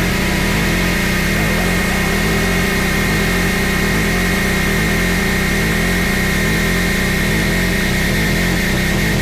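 Harsh noise wall music: a loud, dense, unchanging mass of distorted noise with a steady low rumble and a held band of hiss higher up, with no beat or melody.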